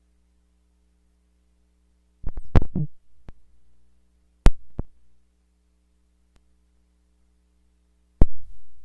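Sharp clicks and taps from a flip phone being handled: a quick cluster about two seconds in, two single clicks a little later and one more near the end. Under them runs a low steady electrical hum.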